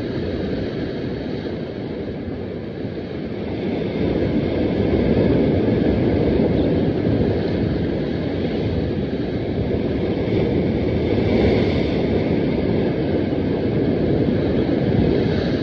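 Steady rushing noise of wind buffeting the microphone and sea waves breaking against the rocks, getting louder about four seconds in.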